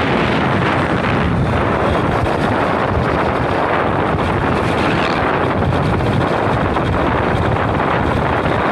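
Steady, loud wind rush on a phone's microphone carried on a motorcycle riding at road speed, mixed with the motorcycle's running.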